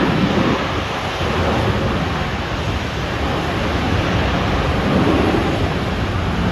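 Steady rushing roar of a Boeing 787-9 airliner's jet engines, with gusty wind buffeting the microphone.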